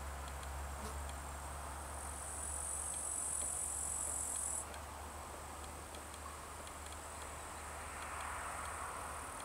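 An insect stridulating in the grass: a high, dry, steady buzz that starts about two seconds in and cuts off suddenly a little before halfway. A steady low hum runs underneath, of the kind the lens's image stabilizer puts into the camera's built-in microphone.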